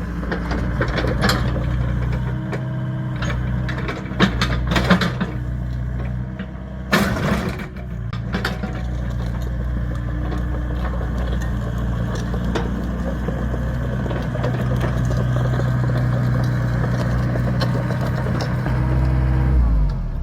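Excavator's diesel engine running steadily while the machine works, with several sharp knocks and crunches, the loudest about four to five and seven seconds in.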